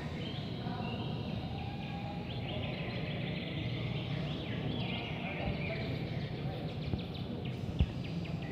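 Many caged competition songbirds singing at once, a dense overlap of quick chirps and trills over the low hum of a large hall.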